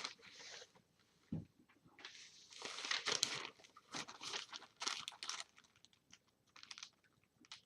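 Packaging crinkling and rustling in several bursts as items are handled and taken out of a food box, with a soft thump about a second and a half in.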